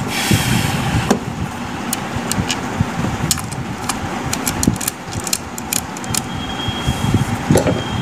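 A plastic 15-amp switch-socket plate being handled and pressed into place on its board: scattered sharp clicks over a continuous low rubbing noise.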